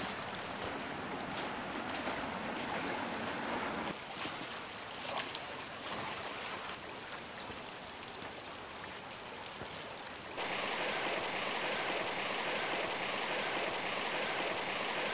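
Shallow creek water running over stones, with scattered splashes from people wading through it in the first several seconds. About ten seconds in, the rushing water turns suddenly louder and steadier.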